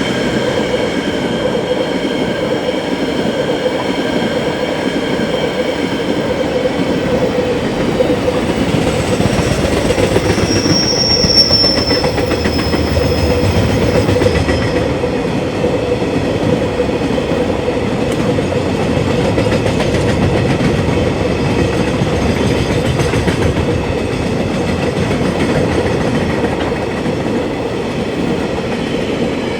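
Freight train wagons rolling past with a steady rumble and rattle, with a brief high-pitched wheel squeal about eleven seconds in.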